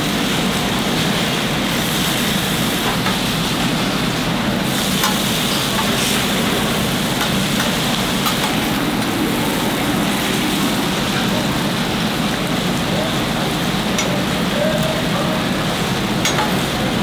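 Smoked brisket for a cheesesteak sizzling steadily on a hot flat-top griddle, with a few light clicks.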